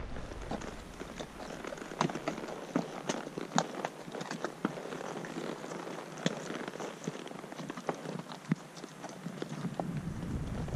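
Horse hooves striking rock and dirt at a walk on a rocky trail going uphill: an irregular run of sharp knocks, a few much louder than the rest. A low rumble comes in near the end.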